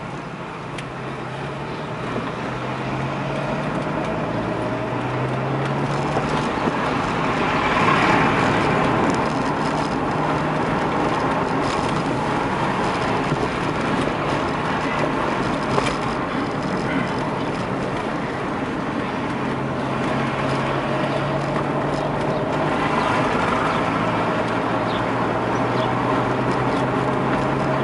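Car engine and tyre noise heard from inside the cabin while driving slowly through town streets; the engine note climbs as the car speeds up in the first few seconds and again near the end, with a louder swell of road noise about eight seconds in.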